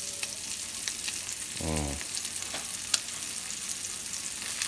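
Ribeye steaks frying in a skillet of foaming butter with garlic and thyme: a steady sizzle with scattered crackling pops.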